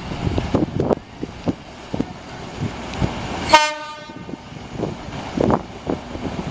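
An Apolo diesel railcar sounds one short horn blast about halfway through as it approaches. Irregular low rumbling and knocks run under it.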